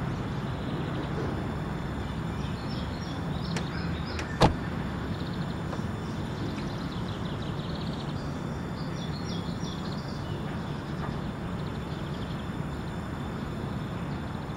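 Outdoor background ambience: a steady low rumble of vehicles with clusters of short high bird chirps, and one sharp knock about four and a half seconds in.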